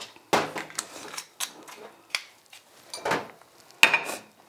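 Kitchen containers and utensils being handled on a counter: a series of short knocks, clatters and scrapes, spaced irregularly about a second or less apart.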